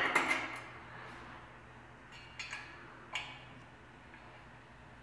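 A few light metal clicks as a loosened metal stay and its hardware are handled against a metal table-leg frame: a sharp clink at the start, then a few faint clicks about halfway through.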